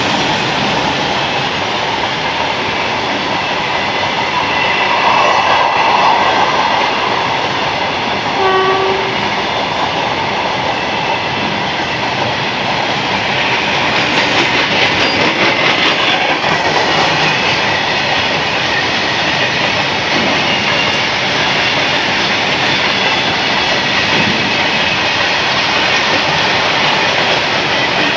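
Covered goods wagons of a freight train rolling steadily past close by: the wheels run on the rails in a continuous rumble with clickety-clack over the rail joints and a thin, high wheel squeal. A brief tone sounds about eight seconds in.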